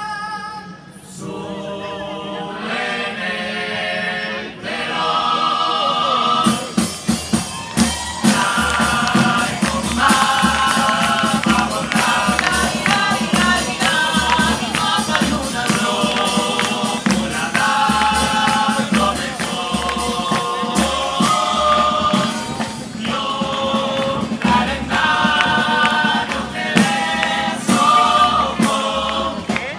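Live band playing through a PA: voices singing over the band, with a steady drum beat coming in about six seconds in.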